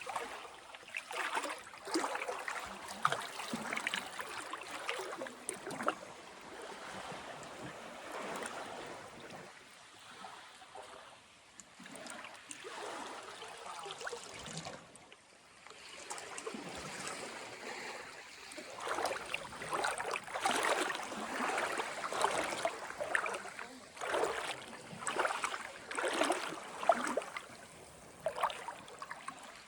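Small waves of a calm sea lapping and splashing along the shore in irregular surges, quieter for a while and then busier in the second half.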